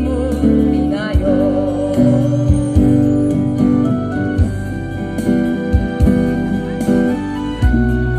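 Live amplified music: acoustic guitars played through a small PA, with a wavering sung note near the start.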